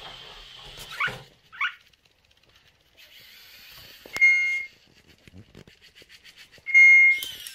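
Small electric robot toy, a Parrot Jumping Sumo minidrone: two quick rising whirs near the start, a stretch of high whirring, then a click and two loud steady electronic beeps about two and a half seconds apart.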